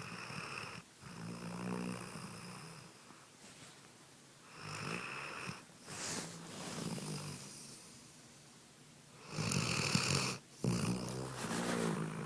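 Shepherd dog snoring in deep sleep: three slow breaths about four to five seconds apart. Each has a high whistle-like note, then a brief break, then a lower, rougher snore.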